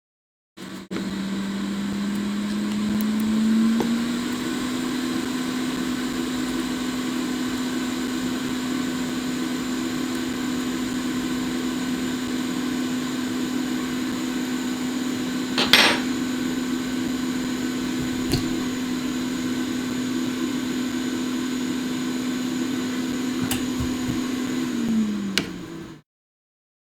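Hot air rework station's blower running with a steady hum and hiss, its pitch rising as it spins up near the start and falling away as it shuts off near the end, used to heat the chip for reballing. A sharp click about two-thirds through.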